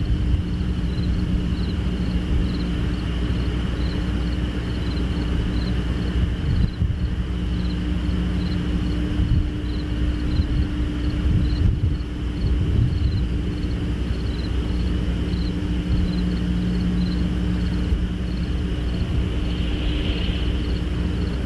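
Steady low rumble with a constant hum, under a high chirping that pulses about twice a second, typical of night insects.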